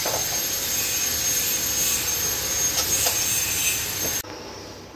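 Steady, loud mechanical whirring noise with a high whine over it and a few light clicks, cutting off suddenly about four seconds in.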